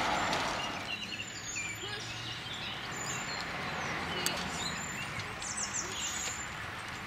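Birds singing: many short chirps and whistles over a steady outdoor background, after a rushing noise fades out in the first second.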